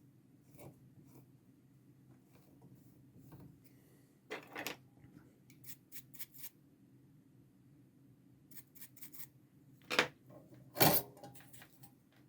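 Desoldering pump at work on a controller circuit board: scattered light clicks, then two sharp snaps about ten and eleven seconds in.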